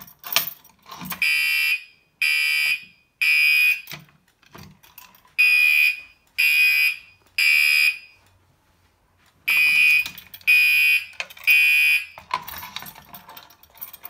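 Commander 3 fire alarm horn sounding a buzzy tone in the temporal-three evacuation pattern: three short blasts, a pause, repeated three times. It is the alarm signal of a homemade 24 V DC fire alarm panel, set off by a key turned in a Simplex pull station, and keys jangle at the start and again near the end.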